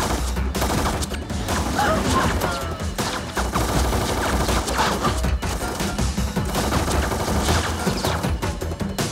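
Rapid rifle gunfire, many shots in quick succession, over a low film score.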